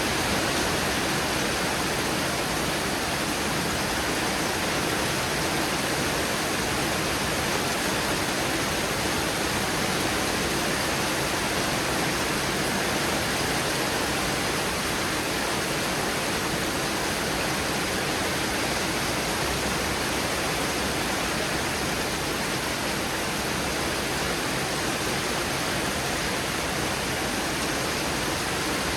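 Heavy thunderstorm downpour: a steady, even hiss of rain with no let-up.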